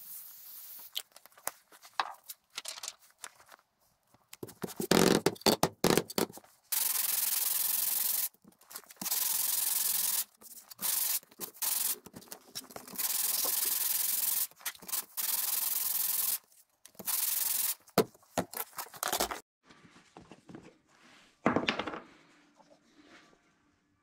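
Thin wood veneer rubbed back and forth by hand on sandpaper, in long, even sanding strokes of a second or two each, to smooth out bandsaw marks. A few loud knocks come before the strokes start.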